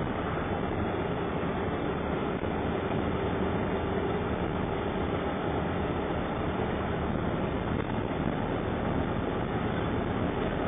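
Steady in-cabin noise of an ambulance driving on a snow-covered road: even engine and tyre rumble without breaks.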